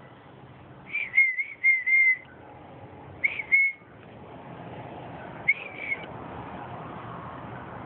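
Short, clear whistled notes at one steady pitch, each with a quick upward flick at its start: a run of four about a second in, two more around three seconds, and one or two more at about five and a half seconds.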